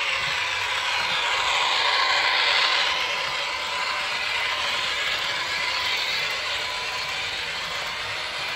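HO-scale ACME ETR 300 Settebello model's ESU LokSound V4.0 sound decoder playing its motor sound as it runs: a loud, jet-like rushing whine with slowly gliding pitch, swelling about two seconds in and then easing a little. The owner finds it more like a jet aircraft than an electric train's traction motors.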